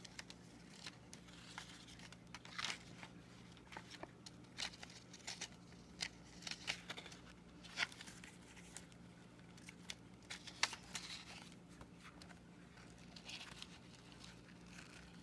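Paper or card being handled: irregular rustling and crinkling with scattered small taps and clicks, over a steady low hum.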